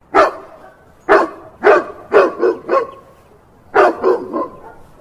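A dog barking: about nine short, sharp barks in uneven runs, with a brief pause in the middle.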